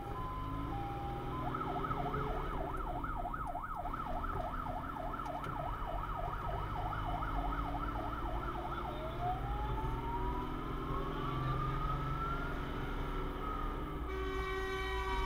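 Fire engine's electronic siren heard from inside the crew cab, over the truck's low engine and road rumble. It starts as a two-tone hi-lo, switches to a fast yelp of about three sweeps a second, then changes to a slow wail that rises and falls. It goes back to a yelp near the end.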